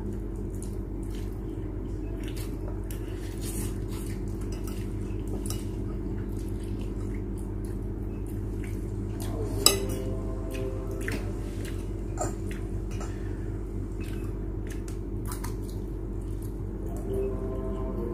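Metal spoons and forks clinking and scraping against ceramic plates of noodles, with one sharp clink about ten seconds in, over a steady low hum.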